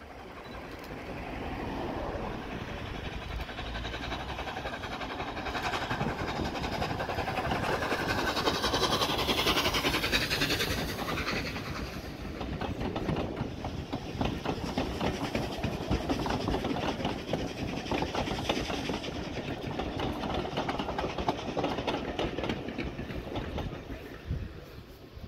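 LNER A3 steam locomotive Flying Scotsman passing with its train of coaches: the engine's noise builds to a peak about a third of the way in, then the coaches' wheels clatter over the rail joints as the train goes by and fades.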